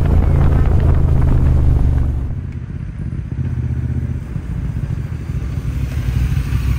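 Motorcycle riding noise heard from a camera on the helmet with the visor closed: a loud, low, steady drone. About two seconds in it cuts to a motorcycle heard from the roadside, its engine quieter at first and growing louder as it rides up.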